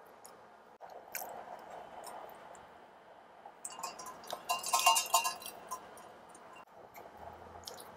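Quiet chewing, then about halfway through a quick run of ringing clinks and rattles from a stainless-steel insulated mug as it is lifted to drink and set down.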